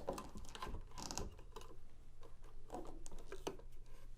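Irregular light clicks, taps and rustles of small parts and packing being handled while unboxing a vintage car 8-track player.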